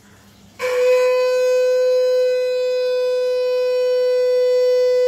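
Conch shell (shankha) blown in one long, loud, steady note that starts sharply about half a second in.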